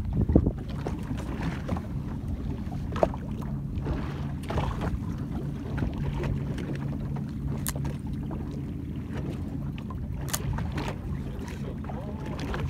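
Wind on the microphone and water moving around a small boat on choppy sea, with a low steady hum through the middle and a few sharp clicks.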